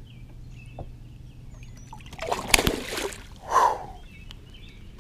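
Lake water splashing as a released largemouth bass kicks free of the hand at the surface: a burst of splashing about two seconds in, then a shorter second splash.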